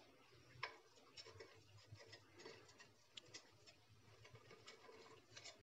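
Faint, scattered clicks and light scrapes of a metal knife blade against a chitoi pitha pan as steamed rice cakes are pried loose from its hollows; the clearest click comes about half a second in.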